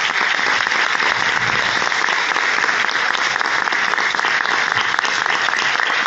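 Audience applauding: dense, steady clapping that sets in just as the music ends.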